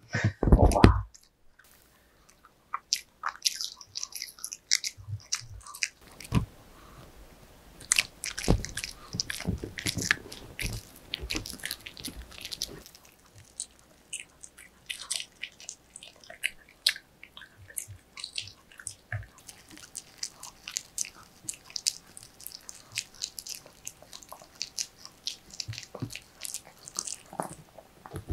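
Pomeranian dog chewing and crunching a homemade waffle treat: many quick bites, crunches and wet smacking clicks, with short pauses between mouthfuls. A brief louder thump comes right at the start.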